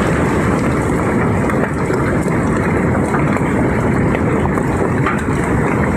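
Heavy hailstorm: a steady, dense roar of egg-sized hailstones pelting leaves, branches and the ground, with a few sharper individual hits.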